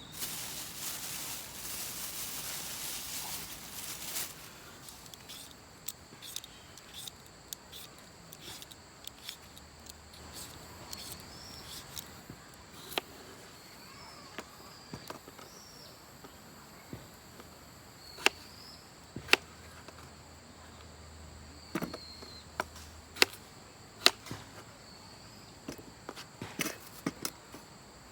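A rushing, rustling noise for the first few seconds, then scattered sharp clicks and knocks at irregular intervals, a few of them much louder.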